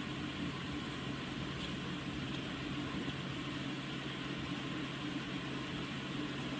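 Humhold 14000 BTU portable air conditioner running: a steady low hum under even fan and airflow noise.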